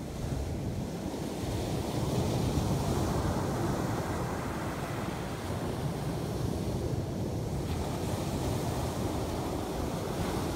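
Small surf waves breaking on the beach and washing up the sand: a continuous rushing that swells about two seconds in.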